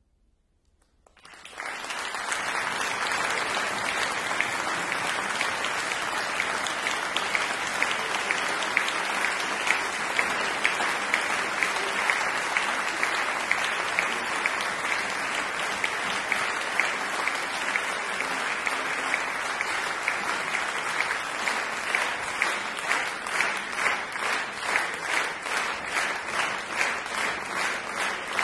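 Concert-hall audience applause breaking out suddenly after about a second of silence. It gradually falls into rhythmic clapping in unison, about two and a half claps a second, by the end.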